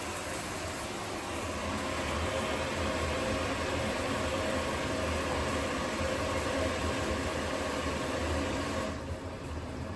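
Water running steadily from the plumbing: an even hiss that drops somewhat about nine seconds in.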